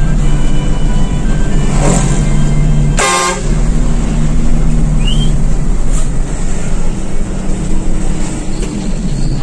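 Bus engine running with road noise inside the driver's cab, and a loud horn blast about three seconds in.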